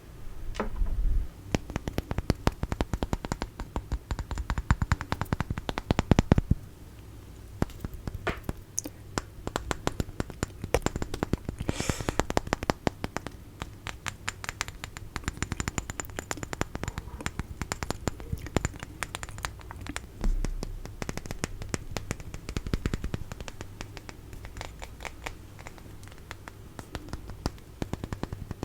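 Fast, irregular tapping and scratching on small objects, a dense run of sharp clicks with a brief lull about six seconds in.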